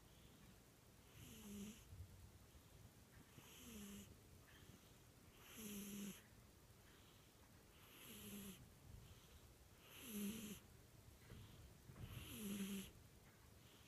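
Cat snoring softly, about six snores, one every two seconds or so. Each snore is a short low tone with a breathy hiss.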